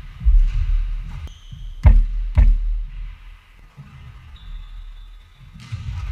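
A basketball bouncing on a hardwood gym floor: two sharp bounces about half a second apart, with brief high squeaks, over a low uneven rumble.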